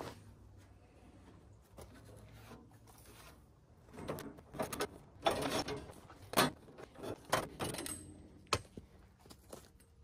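The steel band blade of a Wood-Mizer LT35 sawmill being pulled off and fitted onto the blade wheels by hand during a blade change: irregular metallic rattles, scrapes and clicks, busiest in the middle, with a single sharp click near the end.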